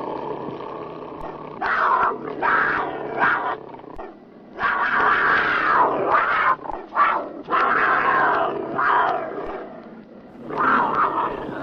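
Tiger roaring and growling in a string of rough calls: several short ones, then a longer call of about two seconds, more short ones, and another call near the end.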